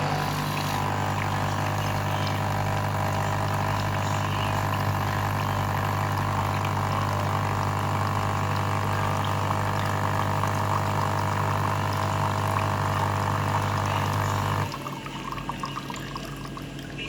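Electric water dispenser's pump humming steadily while water pours out into a container, then cutting off abruptly about fifteen seconds in.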